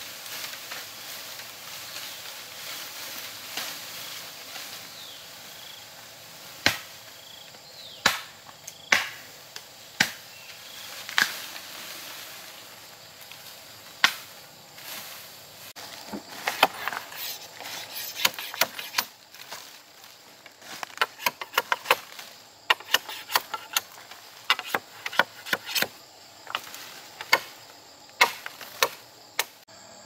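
A hand tool chopping: sharp strikes, a few spaced about a second apart at first, then quick runs of blows through the second half. Insects chirr steadily underneath.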